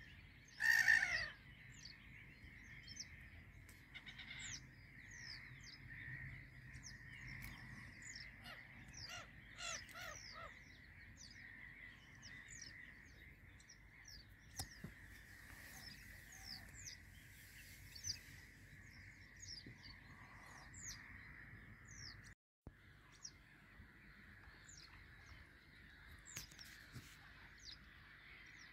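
Wild birds calling around a reedy pond: many short, high, falling chirps over a steady high-pitched buzz. A louder call comes about a second in, and a quick run of harsher notes a little before the middle.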